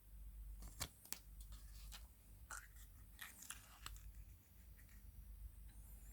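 Hands handling a plastic surprise egg and its mini toys: a few sharp plastic clicks about a second in, then scattered light crackling and clicks over the next few seconds.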